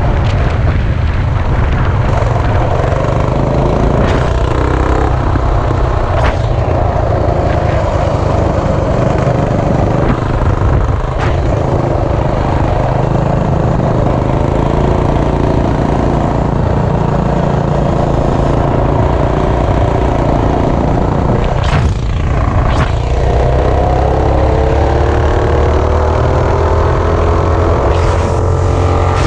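Coleman CT200U minibike's single-cylinder four-stroke engine, fitted with a power-up kit and RLV silencer, running steadily at road speed under the rider. Near the end its pitch climbs steadily as the bike accelerates.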